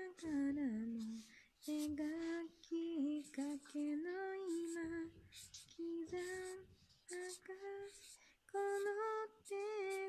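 A young woman singing alone, without accompaniment, in short held phrases with brief pauses between them.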